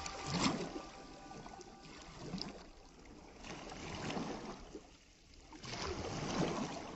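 Small lake waves washing onto a sandy shore, the wash swelling and ebbing about every two seconds.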